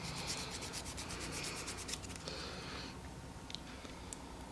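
Wooden nail file rubbing quickly back and forth over a SIM card, sanding down the glue on top of the chip: a faint run of rapid scratching strokes for about two seconds, then a softer rub and a couple of light ticks near the end.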